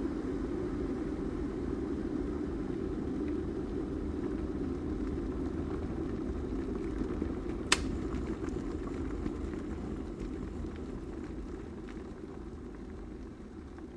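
Electric kettle at a steady boil with a single sharp switch click about eight seconds in, after which the boiling slowly dies away: the kettle switching itself off at the boil.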